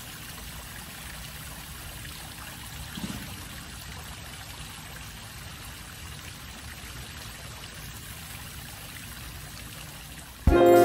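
Steady splashing of water falling from the tiers of an outdoor stone fountain into its basin. Music starts abruptly near the end.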